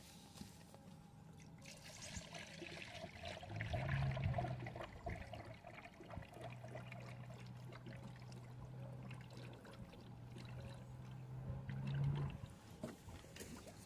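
Ready-mix engine coolant poured steadily from a jug into a wide funnel on a car's coolant reservoir, trickling and splashing as the cooling system is refilled and bled of air. A low hum comes and goes underneath.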